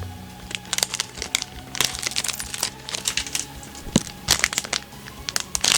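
Plastic toy packaging being torn open and crinkled by hand: irregular crinkling and tearing, with a sharp crack about four seconds in.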